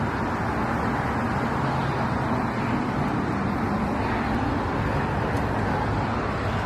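Steady background rumble and hiss, even throughout with a low hum underneath.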